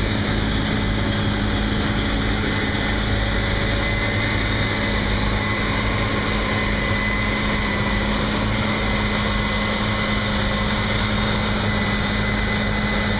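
Farm harvesting machinery running steadily under load in a soybean field: a constant engine drone with a low hum and a faint high whine over a broad rush of machinery noise.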